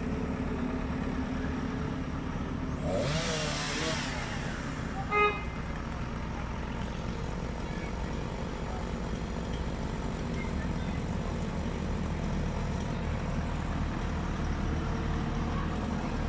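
A heavy vehicle's engine running steadily at low revs, with a brief burst of hissing noise about three seconds in and a short, loud beep about five seconds in.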